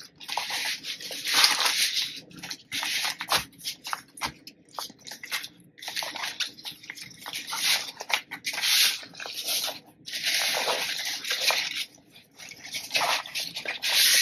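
Fabric apron rustling and rubbing against a tabletop as it is folded and smoothed flat by hand, in irregular bursts of soft rustle.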